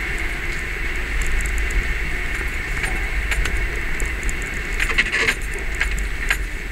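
Jeep driving slowly over a rough tunnel floor, its engine and drivetrain a steady low rumble, with a hand-held camera chattering against the front windshield in irregular clicks that bunch into a quick flurry about five seconds in.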